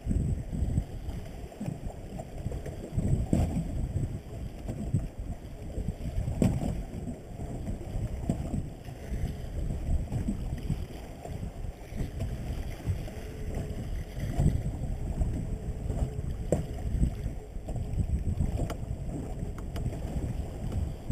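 Wind buffeting the microphone of a small boat drifting at sea, with water slapping against the hull in uneven gusts and a few short knocks.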